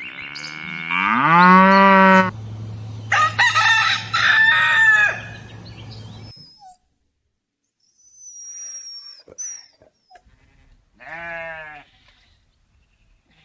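A run of separate animal calls: a long call that rises in pitch, then several shorter wavering calls, a few thin high whistles, and one more short call near the end.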